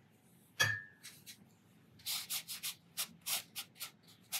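Round synthetic watercolour brush stroking and dabbing on dry watercolour paper, with a quick run of scratchy strokes in the second half. About half a second in there is a single sharp tap with a brief ringing note.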